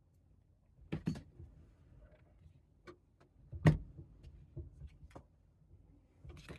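A handful of sharp clicks and light knocks at irregular intervals from small pistol parts being worked on a bench, the loudest a little under four seconds in.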